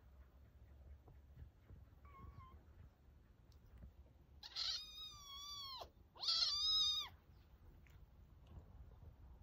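Tabby kitten mewing: one faint short mew about two seconds in, then two loud, drawn-out high mews close together, each dropping in pitch as it ends.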